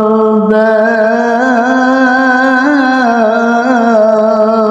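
A man's voice singing a Punjabi Sufi kalam, holding one long note. The pitch wavers up and down in ornaments through the middle, then settles back to the held note.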